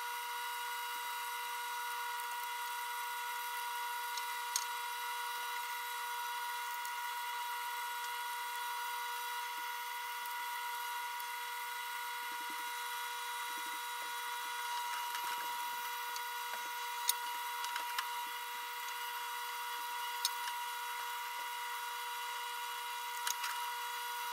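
A steering valve being scrubbed with a brush in a parts washer: light scraping and swishing, with a few sharp clicks. A steady high-pitched whine with several even tones runs underneath it.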